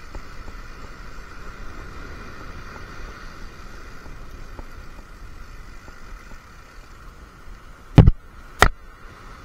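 Steady outdoor hiss of wind and sea with a faint hum, broken near the end by two sharp, loud knocks about half a second apart.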